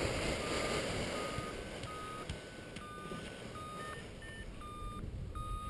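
Paragliding variometer beeping: short steady tones about one to two a second, with a couple of higher-pitched beeps about four seconds in. Wind rumbles on the microphone underneath.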